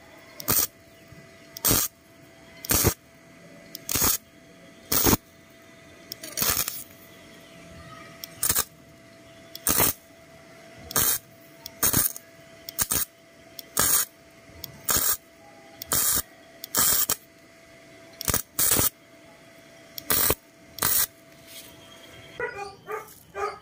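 Midtech Gasless 250 flux-cored welder striking the arc in short trigger bursts, about one a second and each a fraction of a second long: stitch welding. A faint steady tone hums between the bursts.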